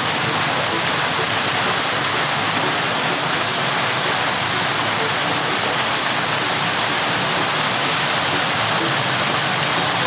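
Steady, loud rush of falling water, starting suddenly and holding even throughout.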